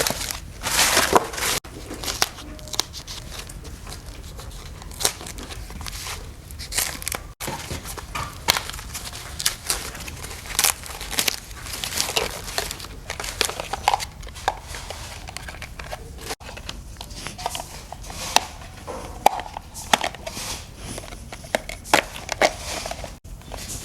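Hand-work noises: a busy string of short clicks and taps over a crinkling, rustling sound, broken by a few abrupt cuts.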